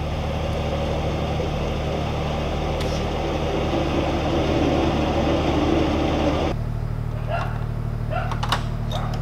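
Steady low mechanical hum of the narrowboat's drive running, under a hiss that cuts off abruptly about six and a half seconds in, where the hum continues slightly changed.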